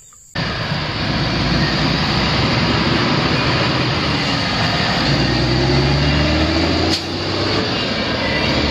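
Concrete mixer truck's diesel engine running as the truck drives slowly, a steady loud rumble with a low engine note. About seven seconds in there is a short break and the sound picks up again.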